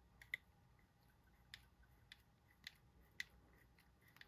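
Near silence broken by a handful of faint, sharp clicks, the loudest about a third of a second in: a T8 Torx driver and small metal parts being handled while the screws are taken out of a folding knife.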